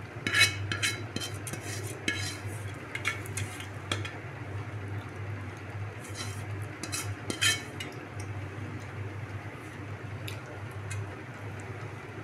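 Soaked rice swept by hand off a metal bowl into a metal pot of broth: scattered clinks and scrapes of the bowl against the pot, the loudest about half a second in and again near the middle, over a steady low hum.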